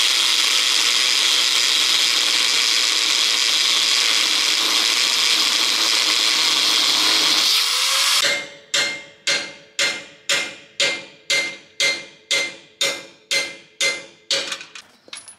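Angle grinder grinding steel on the buggy's rear axle, a loud steady whine that stops about eight seconds in. Then a hammer strikes metal in an even rhythm, about two ringing blows a second, until near the end.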